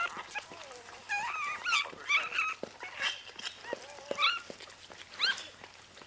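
Newborn vizsla-rottweiler cross puppy squealing in a series of short, high-pitched squeaks that rise and fall in pitch. The squealing helps clear birth fluid from its mouth and airway.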